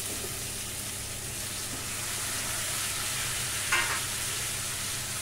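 Freshly washed, chopped cluster beans (gavar) sizzling in hot oil and spice tempering in a kadhai as they go in, a steady frying hiss. A short sharp sound comes about three and a half seconds in.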